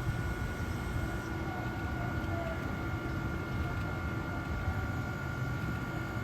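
A train at the station platform: a steady low rumble with a steady high whine held throughout.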